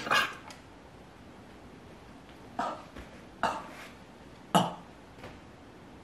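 Several short bursts of stifled laughter from a man, each well under a second, with quiet between them.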